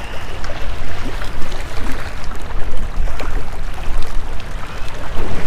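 Small waves sloshing and splashing against granite jetty rocks, with an uneven rumble of wind on the microphone.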